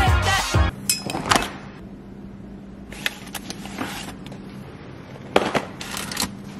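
Background music with a deep bass cuts off within the first second. Then a stack of sleeved plastic prepared-meal trays is handled on a refrigerator shelf: scattered light knocks and rustles over a steady low hum.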